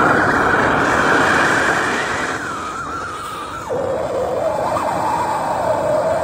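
Handheld gas plumbing torch burning with a steady, loud hiss while heating copper to sweat (solder) female adapters onto copper pipe. A little past halfway the hiss drops to a lower, narrower, wavering tone.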